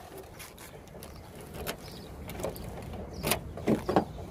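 Dust-storm wind rumbling on the phone microphone, with a handful of short sharp knocks or clicks, the loudest about three seconds in.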